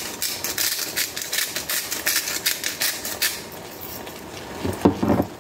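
Store-brand sea salt grinder being twisted over a pot, a run of rapid crunching clicks as the coarse salt is ground, stopping a little past halfway. A couple of louder knocks follow near the end.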